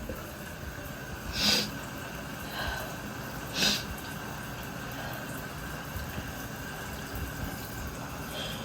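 Shower water running steadily, with two short sniffs from a person in an allergic sneezing fit, about one and a half and three and a half seconds in.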